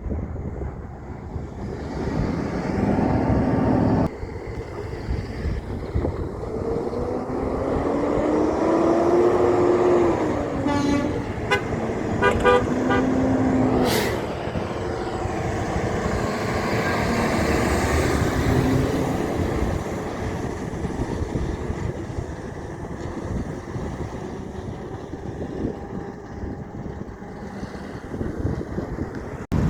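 Heavy trucks on the road, an engine's pitch rising and then falling as one pulls past. Around the middle comes a quick run of short horn toots, followed by a single sharp burst.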